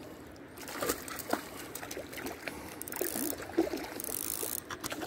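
Small water splashes and light knocks on an inflatable kayak, with scattered short clicks.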